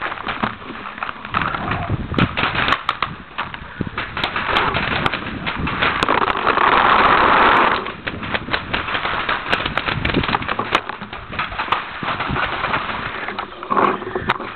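Long grass and weeds scraping and rustling against a marker-mounted camera as it moves close to the ground, louder for a couple of seconds past the middle. Scattered sharp pops of paintball markers firing run through it.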